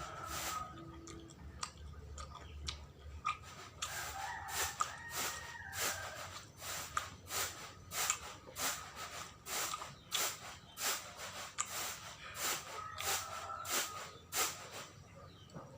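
Close-up wet chewing of sawella, a sticky glutinous-rice snack made with coconut and palm sugar, with sharp mouth clicks and smacks about twice a second.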